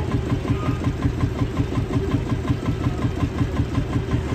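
A vintage tractor engine idling with a slow, even beat of about six pulses a second.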